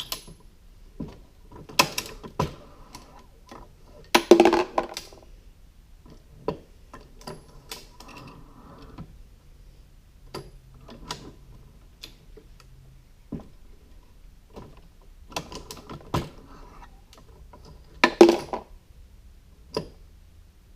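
Hornady Lock-N-Load AP progressive reloading press being cycled by its hand lever. Metallic clanks and clicks of the ram stroke and shellplate indexing come every few seconds, with the loudest clatter about 4 seconds in and again near the end.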